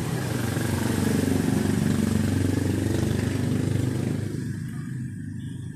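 A small engine running steadily, getting louder about a second in and easing off near the end.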